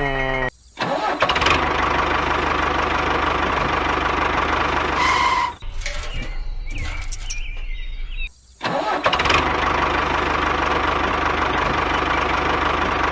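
An engine running steadily, cut off abruptly three times and picking straight back up, with a short beep about five seconds in.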